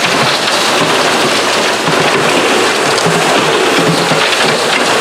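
Steady rush of water and washed gravel running through a diamond recovery wash plant.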